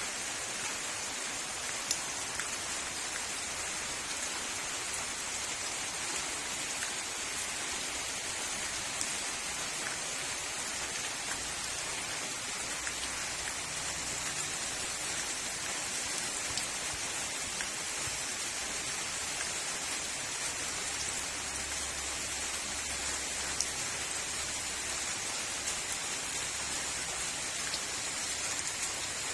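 Heavy rain falling steadily, an even hiss with a few sharper drop taps scattered through it.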